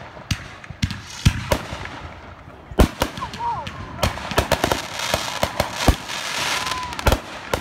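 Aerial fireworks bursting overhead: an irregular string of sharp bangs, the loudest about three seconds in, with hissing and crackling between them.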